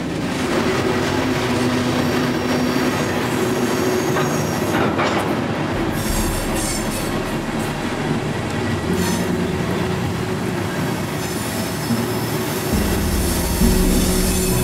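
Freight train rolling on the rails, steel wheels squealing against the rail over a steady running noise, with a deeper rumble joining near the end.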